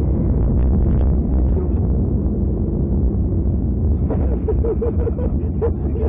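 Car driving at speed, heard from inside the cabin through a dashcam microphone: a steady low rumble of engine and road noise.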